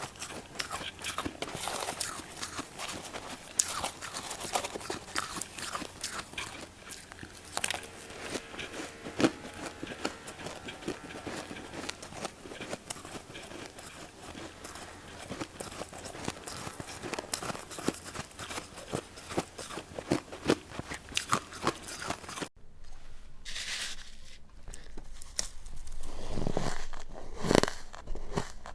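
Close-up crunching and chewing of powdery freezer frost, a dense crackle of many small crunches. The sound changes abruptly about three quarters through, and a few louder crunches follow near the end.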